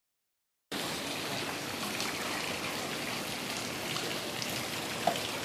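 Steady splashing hiss of water churned by the propeller of a 17 lb thrust Sears electric trolling motor pushing a small boat along, starting just under a second in. A brief sharp sound stands out near the end.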